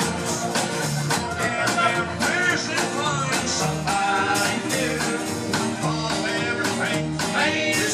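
Live country-rock band playing a song: a singer over guitars and drums, with a steady beat.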